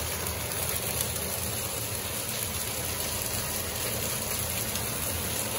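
Tomato, onion and garlic sofrito sizzling steadily in oil in a frying pan.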